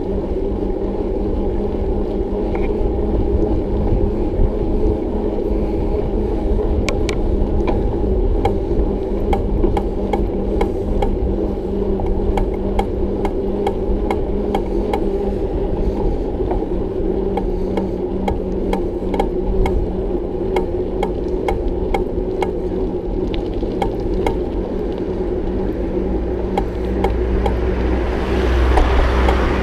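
Bicycle riding noise: a steady rumble from the tyres and the moving bike, with a run of sharp clicks or rattles about once or twice a second from roughly seven seconds in until near the end. A rush of wind on the microphone swells in the last few seconds.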